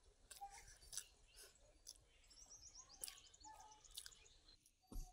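Faint chewing with sharp wet mouth clicks and smacks as mashed idli and mutton curry are eaten by hand. A bird chirps in the background, with a quick run of high notes about two and a half seconds in.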